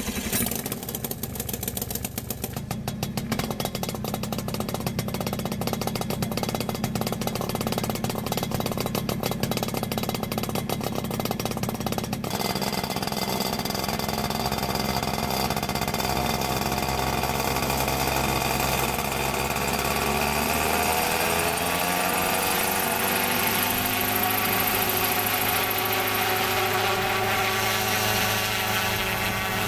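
Yamaha RMAX unmanned helicopter's two-stroke twin engine starting up and running with a rapid putter. About twelve seconds in the sound smooths out as the rotor turns, and from about twenty seconds in a rising whine follows as the engine and rotor speed up.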